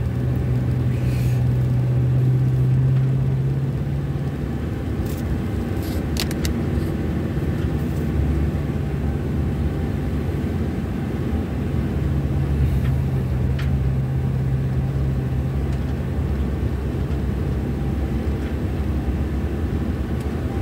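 Car cabin noise while driving slowly: a steady low engine hum and road rumble, with a few light clicks.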